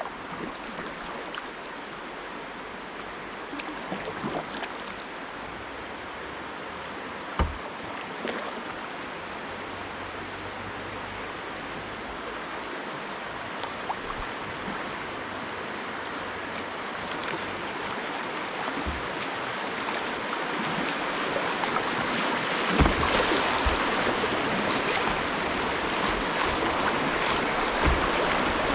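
Rushing water of a shallow, rocky river riffle, growing steadily louder about two-thirds of the way in as the kayak runs into choppier water and it splashes over the bow. A few sharp knocks and splashes come from paddling, one clear one about seven seconds in and several near the end.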